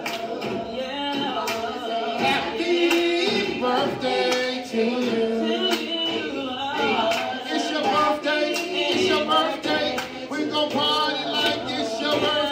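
Music with singing voices over a beat.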